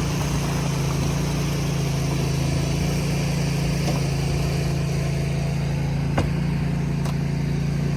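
Concrete power buggy's small engine running steadily with an even low hum, and a single light click about six seconds in.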